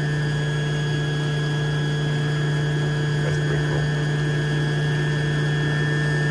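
Electric motor of a building's main circulating water pump running: a steady low hum with fainter steady higher tones.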